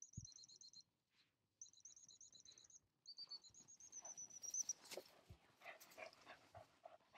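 A dog whistle blown in three short trilling blasts, recalling a spaniel that is bringing back a shot pheasant. Near the end the dog pants and rustles through frosty grass as it comes in.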